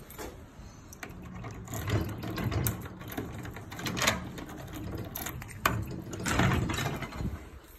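Metal lever handle and latch of an old wooden glass-paned door being worked by hand: an irregular series of clicks and rattles.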